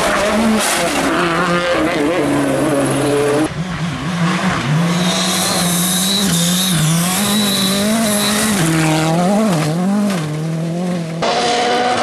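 Rally cars driven flat out on gravel, engines revving up and dropping again and again through gear changes, one car after another. A high steady whine sits over the engine for about three seconds in the middle.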